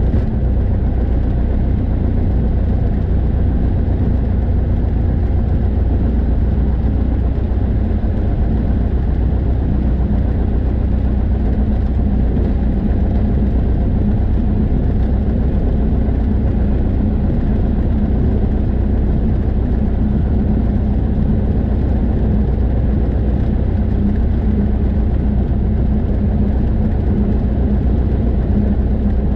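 Single-engine light airplane's piston engine and propeller running steadily at low taxi power, a constant low drone heard from inside the cockpit.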